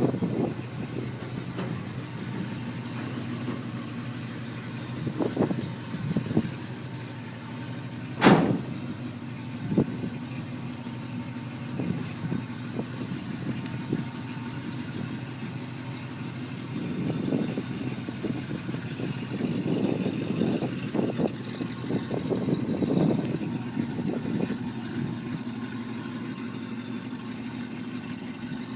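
1956 Chevrolet Bel Air's engine idling steadily, with one sharp click about eight seconds in.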